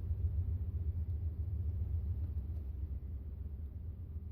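Steady low rumble of background noise, with no distinct clicks or taps standing out.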